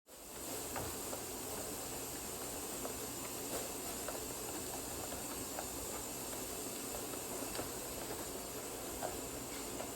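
Steady background hiss that fades in over the first half second, with a few faint, scattered clicks.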